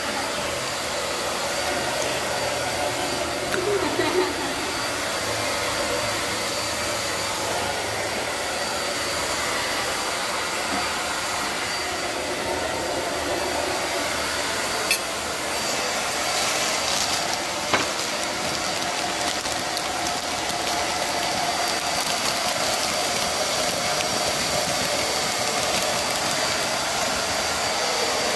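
A steady rushing noise with a faint high whine, and two brief clicks past the middle.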